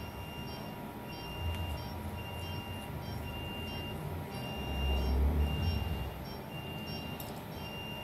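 Repeated electronic beeping from operating-room equipment: a single high tone sounding roughly once a second in uneven lengths, over low handling noise with a brief low rumble about five seconds in.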